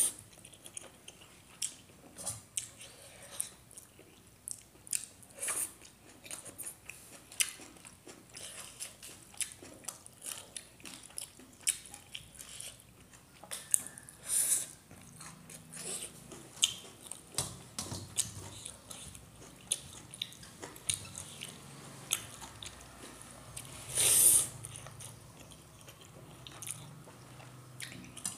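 Close-up chewing and biting of a person eating rice and cooked leafy greens by hand: a steady run of short, wet mouth clicks, with a few louder ones.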